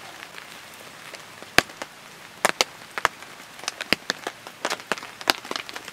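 Charcoal grill with seafood cooking over glowing coals, giving a dozen or so sharp pops and crackles at irregular intervals, the loudest about one and a half seconds in.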